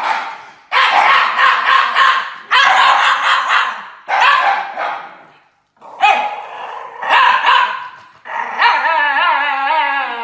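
Two Shiba Inus howling together with heads thrown back, a run of about six long drawn-out howls one after another, the last one wavering up and down in pitch.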